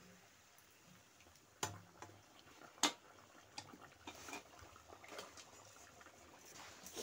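Round of roti dough frying in hot oil in a wok over a wood fire: a faint, crackling sizzle, with two sharp clicks about one and a half and three seconds in, the second the loudest.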